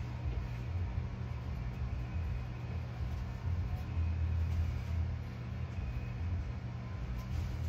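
A steady low rumble that swells a little about four seconds in.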